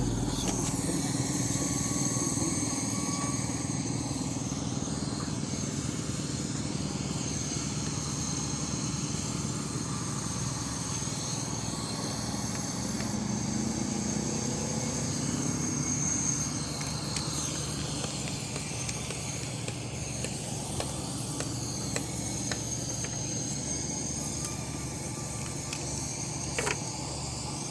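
A small engine running steadily, with a slight rise and fall in pitch around the middle, and a few faint clicks near the end.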